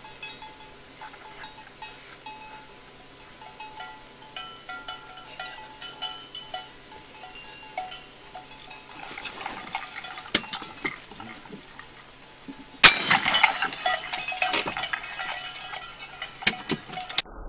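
Cattle bells clinking lightly and irregularly as cows move about. About 13 s in there is a sudden loud crack, followed by a few seconds of clattering noise with many sharp clicks.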